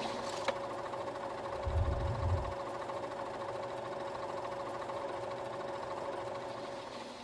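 Steady machine-like hum with a fine, rapid rhythmic clatter, a low thud about two seconds in, fading out near the end.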